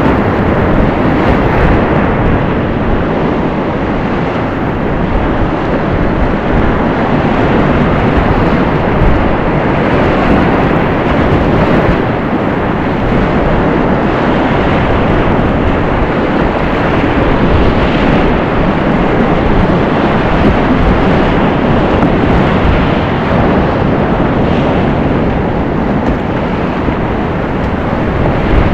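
Continuous loud rush of class 4 whitewater rapids on a mountain creek running at about 500 cfs, heard close up from a kayak going through them.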